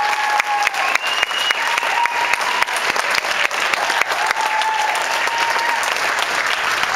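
Audience applauding, with a few long, high held tones over the clapping.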